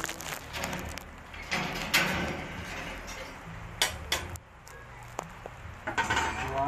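Metal clinks, scrapes and several sharp knocks from the wire racks and door of a small stainless-steel electric oven being handled.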